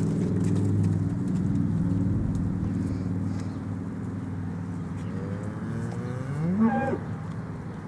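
One of the beef cattle moos once near the end, a call that rises in pitch and breaks off at its loudest. Before it, a low steady hum fades out during the first couple of seconds.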